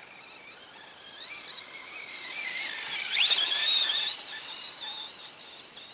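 Electric motor and drivetrain of an Axial EXO Terra RC buggy whining, the pitch rising and falling with the throttle. It grows loudest as the car comes close about three seconds in, with a quick rise in pitch, then fades.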